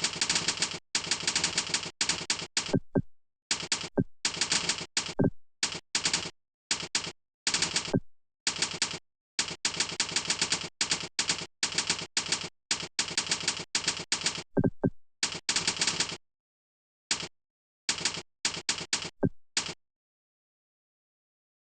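Fast typing on a computer keyboard: rapid runs of key clicks, broken by short pauses and a few heavier thuds among the keystrokes. Near the end it slows to a few scattered keystrokes with longer gaps.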